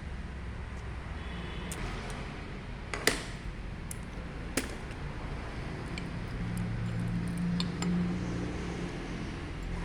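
Parts and tools being handled while a diesel injection pump is taken apart: a sharp click about three seconds in, a second about four and a half seconds in, and lighter ticks, over a steady background hum that swells near the end.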